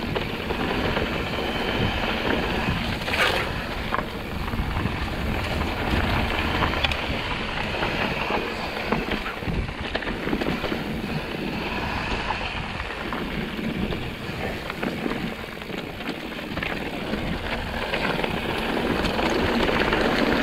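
Mountain bike descending a dirt trail: wind rushing over the microphone, mixed with the rumble and clatter of the bike over rough ground.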